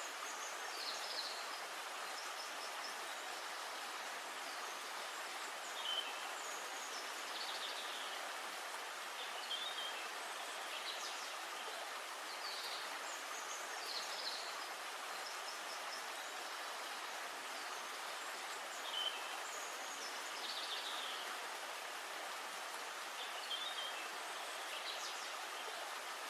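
Forest ambience: a steady hiss with short, high bird calls repeating every second or two.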